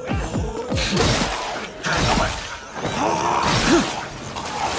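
Action-scene soundtrack: a fast run of deep, pitch-dropping drum thuds in the first second, then several loud noisy crashes.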